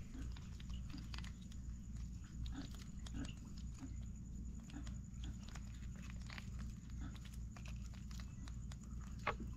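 Blue swimmer crab being tied up with string: small clicks and scrapes of twine and blade against the shell, with a sharp click near the end, over a low steady hum and short low sounds repeating every second or so.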